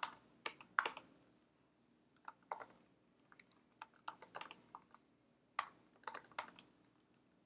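Typing on a computer keyboard: several short bursts of quiet keystroke clicks separated by brief pauses.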